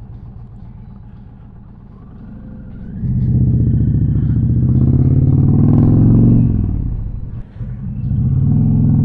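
Indian Challenger motorcycle's V-twin engine ticking over, then pulling away about three seconds in, its pitch rising under acceleration, dropping briefly at a gear change about seven seconds in, and climbing again.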